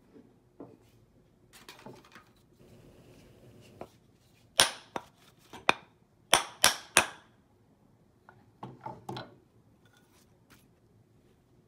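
Sharp knocks as a small steel hammer head is driven onto a new wooden handle: about six loud strikes close together, then a few lighter taps a couple of seconds later.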